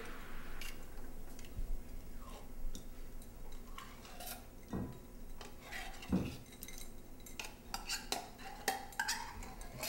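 Spoon scraping condensed cream of chicken soup out of a tin can into a mixing bowl: scattered metallic clinks and scrapes, with a couple of soft thuds as the thick soup drops into the bowl.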